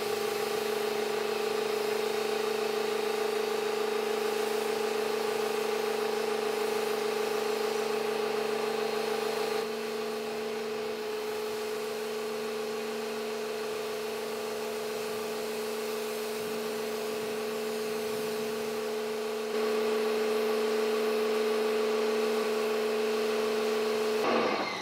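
Kärcher K1700 Cube electric pressure washer running with a steady, unchanging hum while its jet sprays water onto a car in a pre-rinse. The hum drops a little in level about ten seconds in and comes back up about twenty seconds in.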